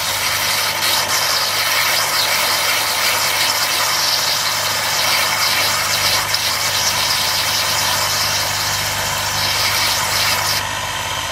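Small Unimat lathe running with a steady motor hum while a model-engine cylinder liner is held on a spinning grinding arbor, giving a continuous high grinding hiss as the bore is ground out to a slight taper.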